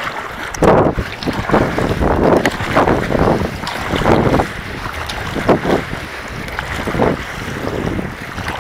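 Wind buffeting the microphone in uneven gusts, over water splashing and rushing along the hull of a stand-up paddleboard as it is paddled.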